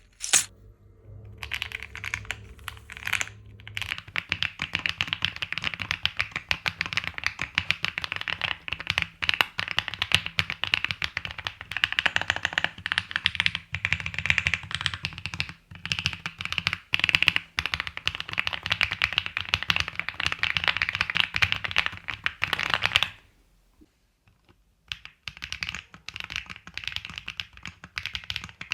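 Typing on an Epomaker Tide 49 mechanical keyboard fitted with Akko Cilantro tactile switches, FR4 plate and PBT keycaps: a fast, continuous run of clacky keystrokes. The typing stops for about two seconds near the end, then starts again.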